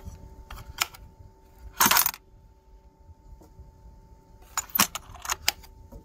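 Metal front latches on an ICECO APL20 12 V fridge/freezer being flipped by hand: a few sharp metallic clicks, one louder clack about two seconds in, and another cluster of clicks near the end. Under them runs a faint steady hum from the fridge's compressor.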